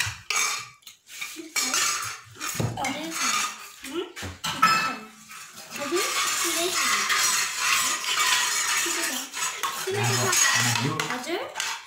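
A metal fork clinking, then scraping steadily against a plate as food is gathered up.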